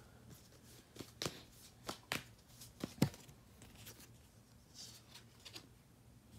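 Tarot cards being shuffled by hand: a series of sharp card snaps and taps over the first three seconds, the loudest about three seconds in, then a softer rustle of cards near the end.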